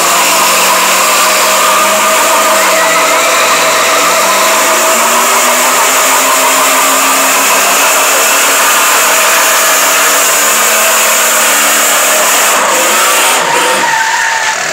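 Two pickup truck engines running hard under load as the trucks pull against each other on a chain. The sound is loud and steady, its pitch wavering up and down, and it eases slightly near the end.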